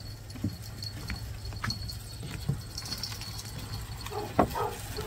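Footsteps on weathered wooden deck boards: irregular knocks of steps on the planks, with one louder knock about four seconds in.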